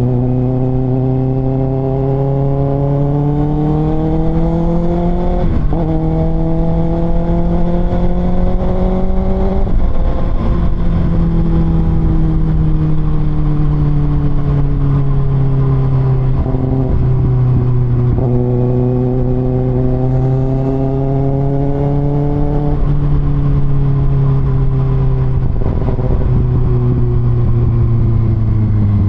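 Kawasaki ZX-6R's 636 cc inline-four engine through an Austin Racing aftermarket exhaust, under way. The engine pitch climbs and is cut back sharply twice, about 5 and 10 seconds in, as at upshifts. It then eases down, climbs again, and falls off near the end.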